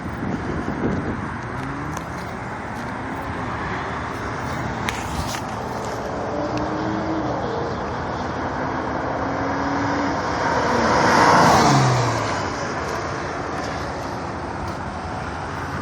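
A Lexus car driving past. Its engine note climbs as it approaches, is loudest about eleven seconds in, then drops sharply in pitch as it goes away.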